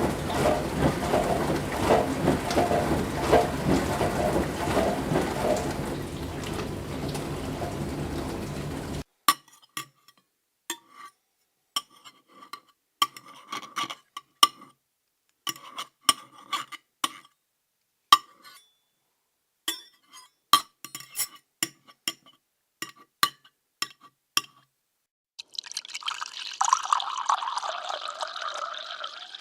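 An appliance motor runs with a steady hum and stops suddenly. Then come a long run of irregular glass clinks with a short ring, and near the end liquid is poured into a glass.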